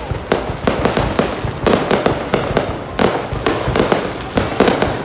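Fireworks display heard from close to the launch site: a rapid, uneven string of loud bangs and launch thumps over continuous crackling from bursting shells.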